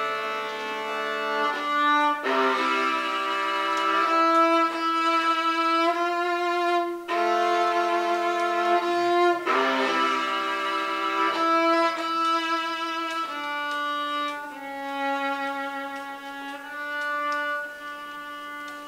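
Solo violin playing a baroque piece in long bowed notes, sometimes two strings at once, growing softer near the end.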